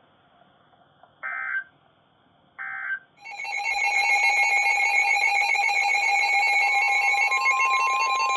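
Emergency Alert System tones: two short digital data bursts, the end-of-message code that closes one alert, then a loud continuous electronic alert tone starting about three seconds in, which opens the next warning. A second pitch joins the tone near the end.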